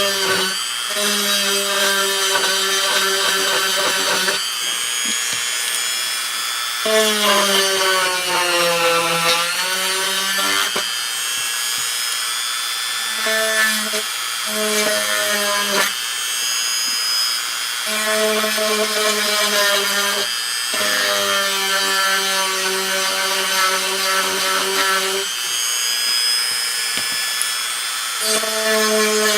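Small electric drill running in repeated bursts of a few seconds each, with short pauses between. Its whine sags in pitch for a few seconds about a third of the way in as the bit bites under load, then recovers.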